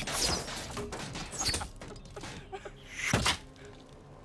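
Arrows striking and thudding into metal-faced shields during an arrow volley, over a dense rattling bed, with three loud hits: at the start, about a second and a half in, and about three seconds in. The sound fades near the end.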